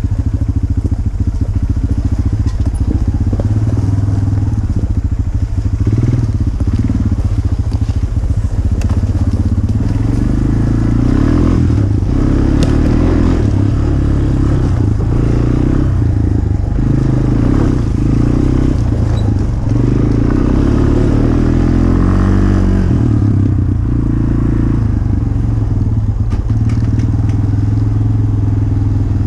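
Dirt bike engine running at riding speed, its revs rising and falling with the throttle, with occasional knocks and rattles.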